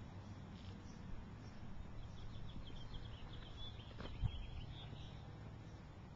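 Quiet outdoor ambience with a steady low rumble and handling noise from a handheld camcorder being walked along. A run of rapid, high, short chirps comes in the middle, and a single sharp thump about four seconds in.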